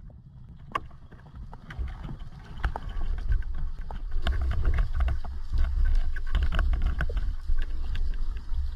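Underwater sound picked up by a diver's camera: a low rumble of water moving around the housing, growing stronger about two seconds in, with many scattered short clicks and crackles.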